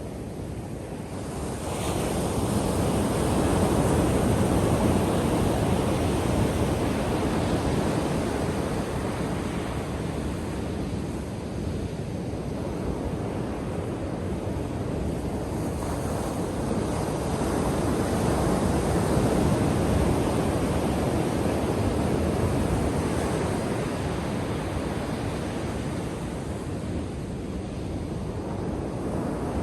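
Ocean surf: waves breaking and washing onto a beach in a steady rushing wash, swelling louder about two seconds in and again around the middle.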